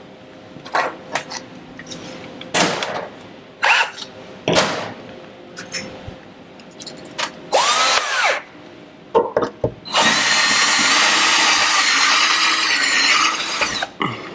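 Power drill boring a hole in the wall for a TV mounting bracket: a short spin-up about eight seconds in, then about four seconds of steady drilling near the end. Before that, scattered knocks and clicks of tools and the bracket being handled.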